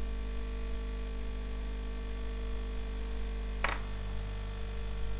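Steady electrical mains hum, with a single sharp click about three and a half seconds in.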